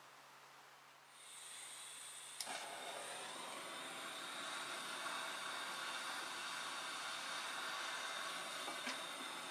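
Hand-held gas torch on a hose: gas starts hissing about a second in, a sharp click at about two and a half seconds lights it, and the flame then burns with a steady rushing hiss.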